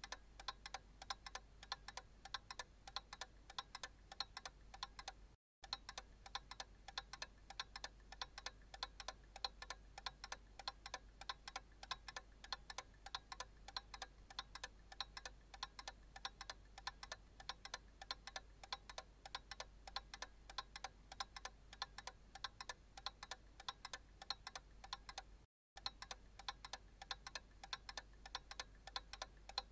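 Analog clock ticking steadily in an even rhythm over a faint low hum. The ticking cuts out to silence for a split second twice, about five seconds in and again about four seconds before the end.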